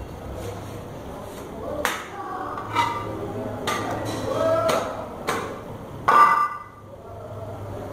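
Sharp knocks of butchering, the loudest about six seconds in as a heavy meat cleaver chops down onto a wooden chopping block, leaving a brief metallic ring. Men's voices murmur underneath.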